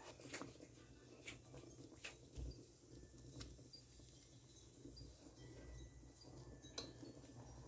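Near silence: faint room hum with a few scattered soft clicks.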